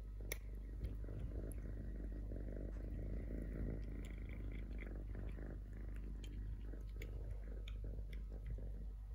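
Kitten eating dry kibble from a plastic tub: crunching with scattered sharp little clicks, over a steady low rumble that sounds like purring.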